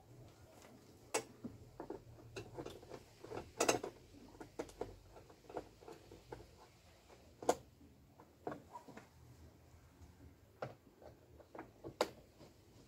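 Irregular light clicks and taps of hand tools on the bolts of a car's cowl panel as they are undone, with a few sharper clicks about a second in, near four seconds, halfway through and near the end.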